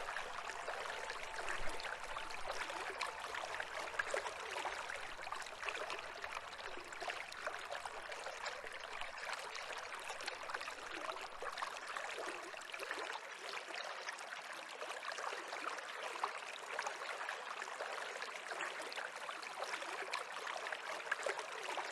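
A stream of water babbling steadily.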